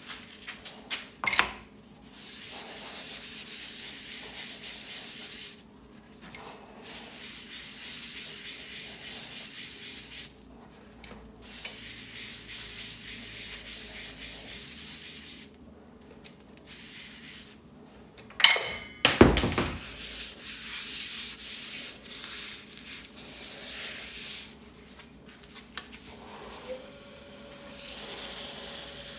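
Abrasive paste being rubbed with a paper towel onto a burl-and-resin bowl spinning on a wood lathe: a steady scratchy hiss in stretches with short breaks. A few sharp knocks come in, the loudest a cluster about two-thirds through, and a steady hum begins near the end.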